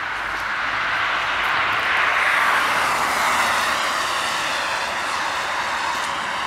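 A road vehicle driving past: its tyre and engine noise swells to a peak about two and a half seconds in, then fades.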